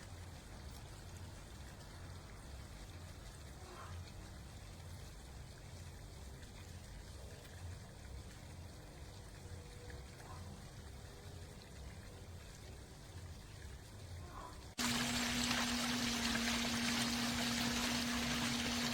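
Water from an Intex LED pool waterfall fountain falling into the pool, a soft steady splashing. About fifteen seconds in it cuts abruptly to much louder rushing water with a steady low hum under it.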